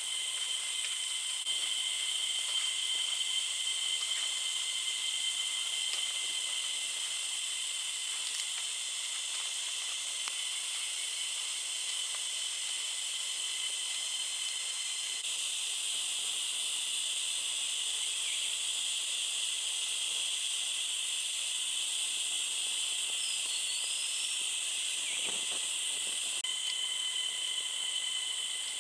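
Forest insects droning steadily in several high-pitched bands, with a short bird chirp and a faint low knock near the end.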